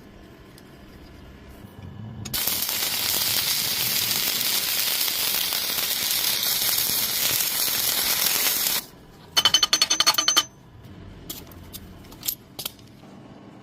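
Arc welding on thin square steel pipe: a steady hiss for about six seconds that cuts off suddenly. Then a quick run of about ten ringing metal-on-metal taps, followed by a few faint clicks.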